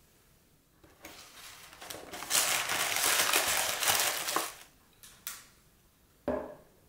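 Paper shopping bag and its wrapping rustling and crinkling for a few seconds as something is pulled out, loudest in the middle, then a short click. Near the end a glass perfume bottle is set down on a wooden table with a single knock.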